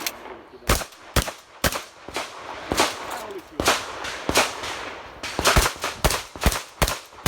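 Pump-action shotgun, a Remington 870, firing a rapid string of about a dozen shots spaced roughly half a second to a second apart as a stage is shot.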